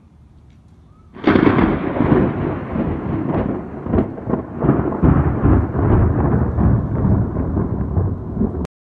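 Thunder: a sudden loud crack about a second in, then a long rolling rumble broken by sharp crackles, cut off abruptly near the end.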